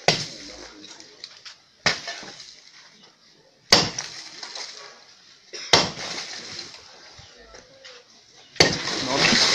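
A long-handled hammer smashing into a cement-block wall, five heavy blows about two seconds apart, each followed by rubble clattering down. The last blow, near the end, brings a longer crash of falling masonry.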